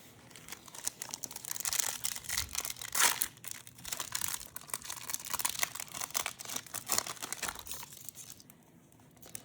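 Trading card pack wrapper being torn open and crinkled in the hands, a dense run of crackling that eases off near the end.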